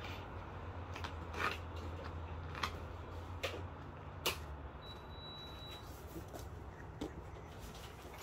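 Scattered light clicks and knocks of household handling over a low steady hum, with a short high steady tone lasting about a second from about five seconds in.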